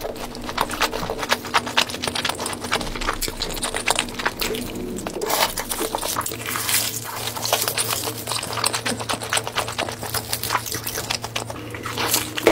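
Close-miked mukbang eating sounds: dense, rapid crunching and mouth clicks from someone chewing crunchy food, with music underneath.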